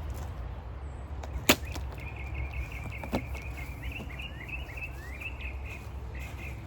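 A sharp snap about one and a half seconds in and a softer click about three seconds in from handling the solar panel's cardboard shipping box. A small bird twitters in quick chirps from about two seconds in, over a steady low rumble.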